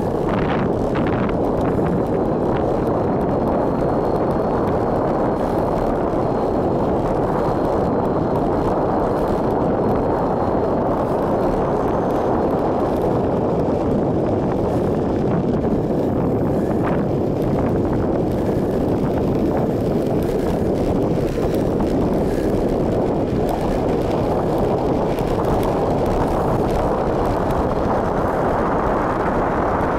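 Steady loud rush of wind buffeting the camera's microphone as a bicycle coasts fast downhill on a paved road.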